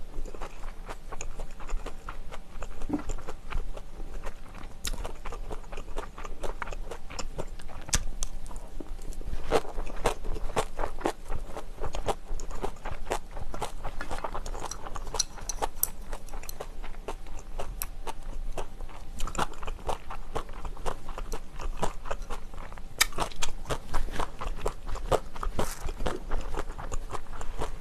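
Close-miked chewing of mouthfuls of herring-roe bibimbap and kimchi: wet crunching and a dense, irregular run of small clicks and smacks.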